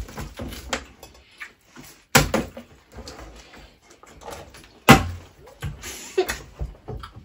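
A flipped bottle landing on a hard surface: two sharp knocks about three seconds apart, with lighter knocks and handling sounds between.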